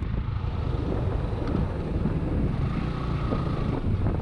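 Suzuki Gixxer SF motorcycle riding along, its single-cylinder engine running steadily under a rush of wind on the microphone.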